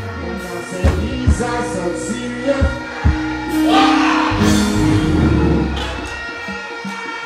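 Live reggae band (drums, bass, keyboards) playing through a large outdoor PA, with a singer on the microphone. The music swells louder about three and a half seconds in.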